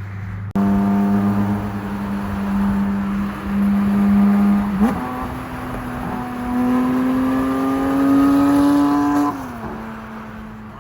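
Porsche 992 GT3 flat-six engine through an FI aftermarket exhaust, pulling at a steady note, then a quick gear change about five seconds in. The note then climbs slowly for about four seconds and falls to a lower steady drone near the end.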